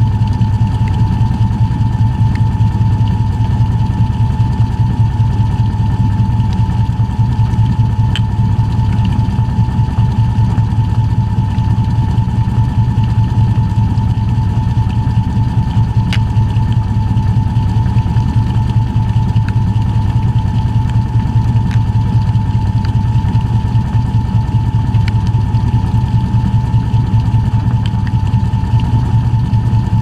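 Shacklock (Fisher & Paykel) Gentle Annie top-loading washing machine running steadily, heard from inside its tub while it spins: a loud, constant low motor hum with a steady whine above it. A few faint ticks come through now and then.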